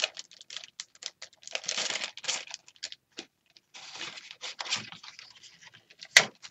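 Rustling and crinkling of thin plastic stencils and packaging being handled, with scattered light clicks and taps and a sharper click near the end.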